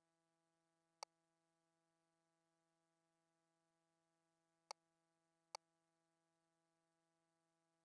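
Near silence: a faint steady hum, broken by three brief sharp clicks, one about a second in and two close together near the end.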